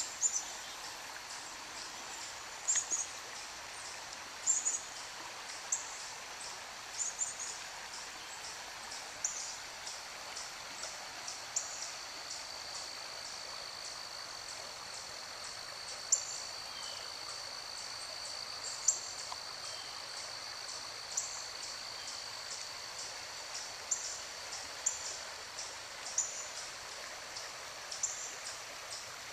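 Steady rush of the flowing Rogue River, with short high bird chirps every second or two. A thin, high, steady tone runs through the middle stretch.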